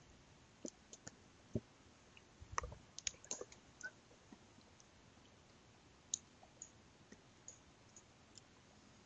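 Faint, sparse clicks and a few soft knocks at a desk over quiet room tone, busiest from about one and a half to three and a half seconds in, with a few more later.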